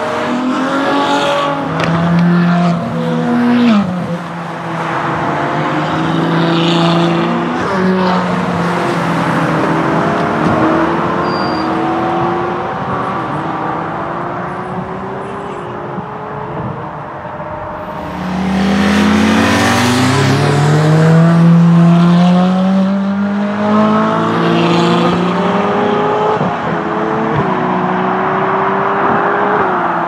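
Several Ferrari supercars accelerating away one after another, their engines rising in pitch through the gears and dropping back at each upshift. The loudest run comes a little past halfway.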